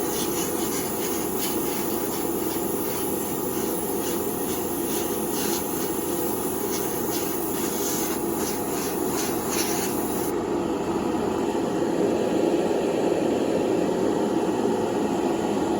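Handheld hot-air blower running steadily, drying a fresh coat of paint on a die-cast car body, with light clicks over it for the first ten seconds.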